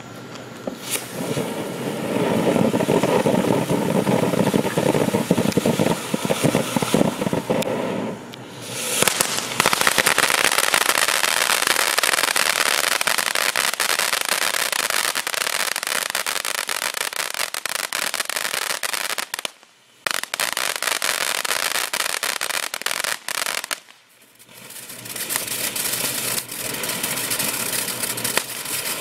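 Popcorn M341 ground fountain firework spraying sparks with a steady hiss, which turns into dense, rapid crackling about nine seconds in. The sound drops out briefly twice between effects, then the crackle resumes.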